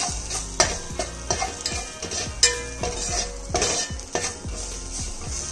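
Steel spoon scraping and clicking against a stainless steel pan roughly every half second as onion, tomato and moringa leaves with ground spices are stirred and sautéed, with a sizzle underneath. The spices are being fried until their raw smell goes.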